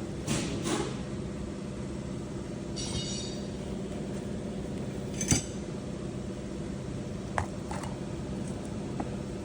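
Metal tools and parts clinking and tapping against each other: a few sharp clinks near the start, a ringing metallic note about three seconds in, and a louder clink about five seconds in. A steady low hum runs underneath.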